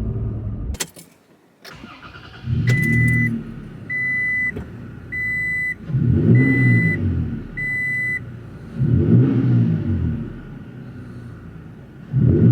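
Toyota Tacoma engine heard inside the cab, revving up and settling in four short swells. A dash warning chime beeps five times, evenly spaced, in between. The engine sound cuts off abruptly about a second in, followed by two clicks.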